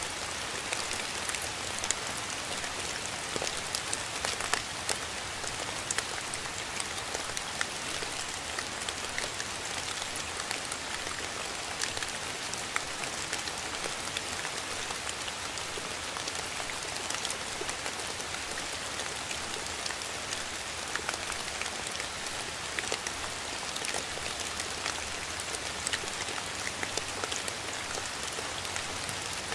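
Steady rain: an even hiss of falling rain with many short, sharp drop hits scattered through it.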